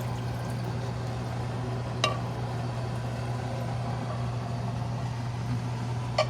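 Steady low hum of a kitchen appliance running, with a light knock about two seconds in and another near the end.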